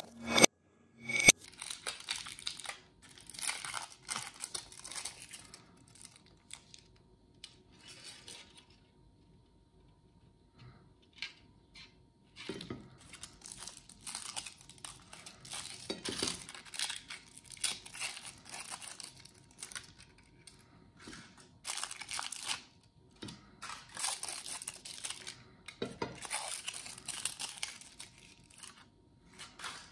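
Foil wrappers being peeled and torn off umbrella-shaped chocolates, crinkling in irregular bursts with pauses, and a near-quiet stretch about ten seconds in. There is a sharp clink against the ceramic plate about a second in.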